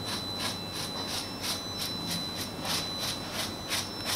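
Rhythmic hand scraping strokes, short and sharp, at about four a second, with a faint steady high tone behind them.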